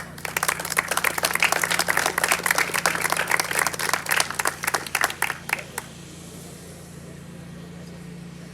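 Small audience clapping for about six seconds, then stopping abruptly, leaving a steady low hum.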